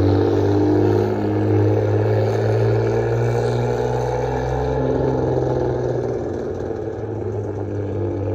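Nissan Skyline GT-R R33's RB26 twin-turbo straight-six running steadily at low revs through its old exhaust, the muffler and catalytic converter cut out and replaced with 80mm stainless pipe. It gives a steady drone that the owner finds sounds bad at low RPM.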